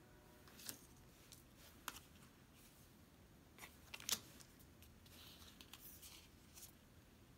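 Photo cards being handled and laid down on a tabletop: a few faint, light taps and clicks, the sharpest about four seconds in, with soft sliding and rustling of card.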